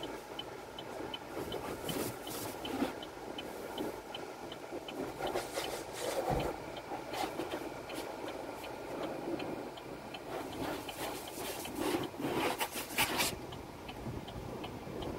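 A Belanger car wash tunnel heard from inside the car: water spray and cloth brushes sweeping and slapping across the body, with louder brush passes about two, six and twelve seconds in. A quick, even ticking of about three a second runs under it.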